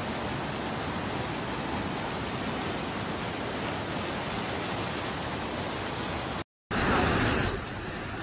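Steady rushing noise of a swollen, fast-flowing flood river. It cuts out briefly about six and a half seconds in, then comes back as a louder rush for under a second before settling into a steadier, slightly quieter rush of floodwater.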